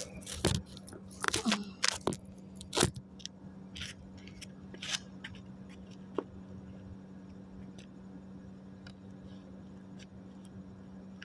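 Handling noise as a phone is set down and propped up: a cluster of sharp knocks and scrapes in the first three seconds, then a few faint clicks, over a steady low hum.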